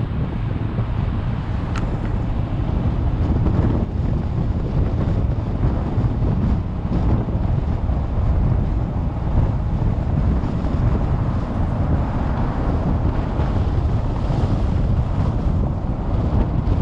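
Steady low rumble of road and wind noise from a car driving along a paved road, heard from inside the car.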